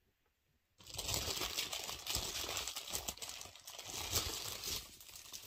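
Clear plastic packaging crinkling and rustling as it is handled. It starts about a second in, after a short gap of dead silence.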